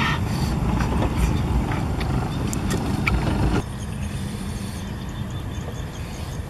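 Wind rumbling on the microphone, with scattered chewing and lip-smacking clicks as a grilled snail is eaten. A little over halfway through, the sound drops suddenly to a quieter, steady rumble.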